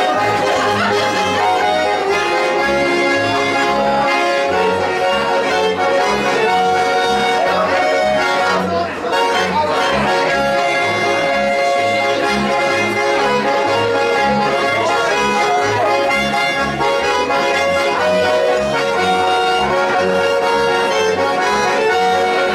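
Live accordion-led folk dance music with a steady, regular bass beat and held melody notes.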